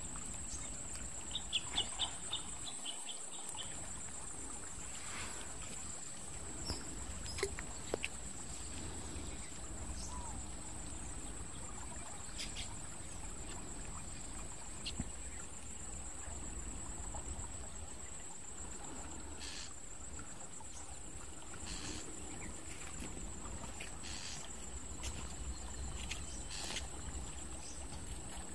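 A steady high-pitched drone of insects, over a low rumble. About two seconds in there is a quick run of short high chirps, and a few sharp clicks are scattered through it.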